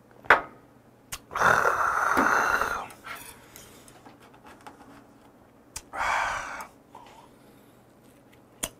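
A man's loud, raspy exhale after downing a shot of harsh liquor, with a second, shorter breath out about six seconds in. A sharp click comes just before the first exhale.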